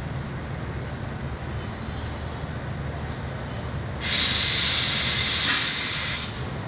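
A steady low train rumble, then about four seconds in a loud hiss of compressed air vented from a train's air-brake system. The hiss lasts about two seconds and cuts off fairly sharply.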